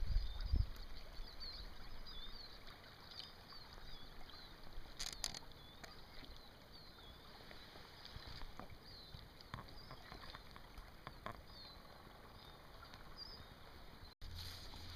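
Small songbirds chirping over and over above the faint, steady rush of a flowing river. Wind buffets the microphone in the first second.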